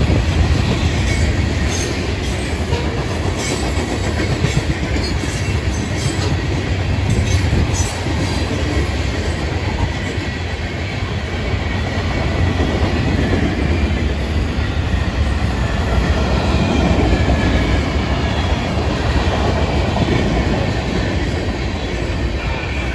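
Loaded freight cars (hoppers and boxcars) of a Florida East Coast Railway train rolling past, their steel wheels rumbling and clacking steadily on the rails. Sharp clicks come through during the first eight seconds or so.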